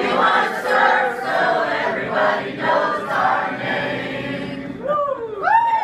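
A group of people cheering together in one long, sustained shout of many voices, with high whoops rising and falling near the end.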